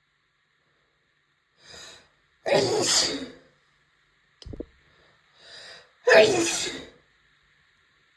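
A woman sneezing twice, about three and a half seconds apart, each loud sneeze preceded by a short breath in; allergy sneezes. A brief low thump falls between them.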